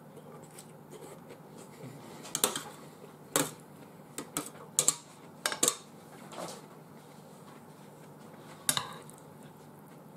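Cutlery clinking against a dish while eating, in a series of about seven or eight sharp clinks, most of them bunched a few seconds in and one more near the end.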